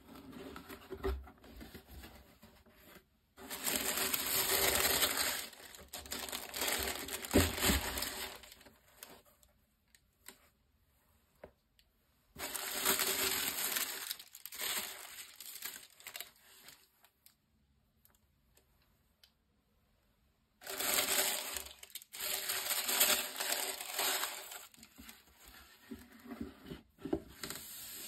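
A cardboard shoebox and its tissue paper being handled by gloved hands, the paper rustling and crinkling in three spells of a few seconds each, with quiet pauses between.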